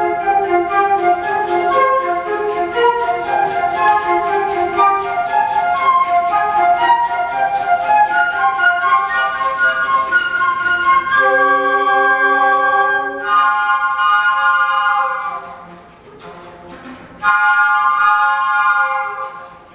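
A flute choir playing: quick, busy passages of moving notes for about the first half, then long held chords. The first chord fades out, and a second one enters after a brief quieter moment near the end.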